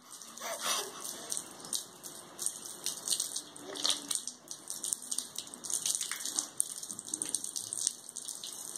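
Water from a garden hose splashing and spattering onto a wet concrete floor, coming in uneven surges as the stream moves about.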